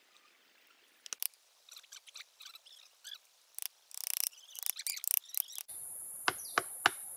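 Wooden mallet knocking against a tree trunk while cutting into a wild honeybee nest: scattered knocks and scrapes, then three quick sharp strikes near the end. A steady high insect hiss sets in suddenly just before those strikes.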